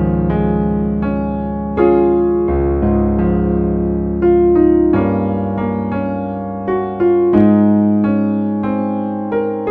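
Slow keyboard music in a piano sound: sustained chords struck every second or two and left to ring over held bass notes.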